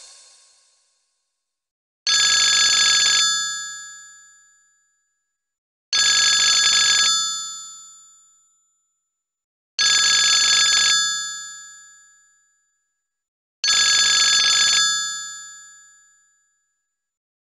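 Sony Ericsson J210i mobile phone ringtone ringing four times, about four seconds apart. Each ring lasts about a second and then fades away.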